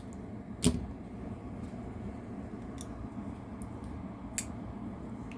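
A full-titanium QSP Penguin folding knife being fidget-flicked: a sharp metallic click of the blade snapping about two-thirds of a second in, a softer click near the end, and a few faint ticks between.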